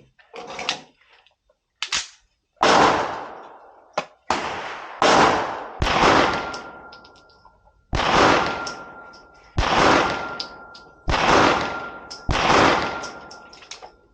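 Pistol shots from a Staccato P Duo 9mm 2011 handgun: about eight shots spaced one to two seconds apart, each with a long echo trailing away.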